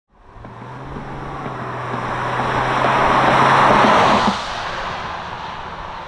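A car driving past: road and tyre noise swells to a peak about four seconds in, its low engine hum drops away, and the noise then fades off.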